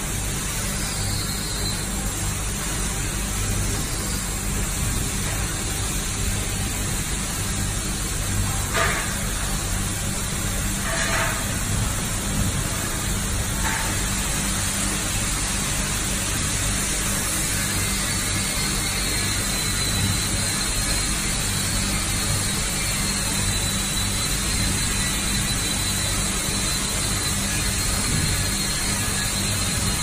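Flexo plate washing machine running: a steady hum and rushing noise from the machine as it cleans and carries the plate through on its conveyor, with a few light knocks about a third of the way in.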